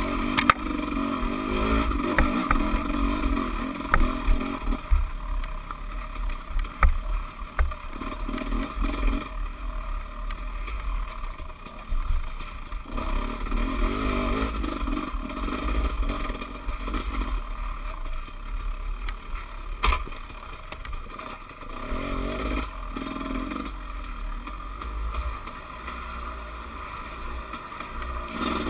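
Dirt bike engine on the throttle and off again along a rough trail, its note swelling and easing several times, with knocks and rattles from the bike over roots and ruts. A steady low rumble of wind sits under it on the bike-mounted camera's microphone.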